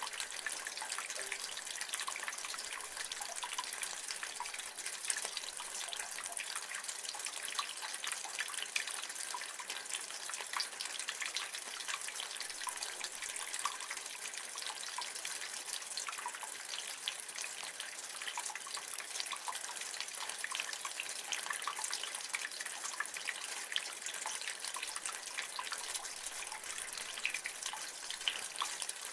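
Rainwater running and dripping from a gutter, a steady splashing patter of many small drops.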